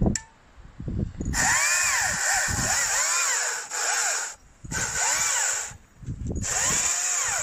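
Stihl MSA 200 C battery chainsaw cutting firewood logs, running in three bursts with short breaks between them. Its high motor whine rises and falls again and again while the chain rasps steadily.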